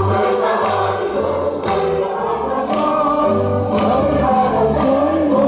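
A group of men and women singing a song together, with instrumental backing and held bass notes underneath.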